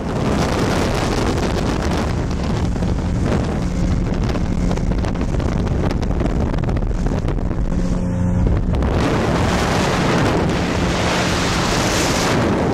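Outboard motor running at a steady pitch as a small motorboat travels across the water. Wind buffets the microphone throughout, growing heavier over the last few seconds.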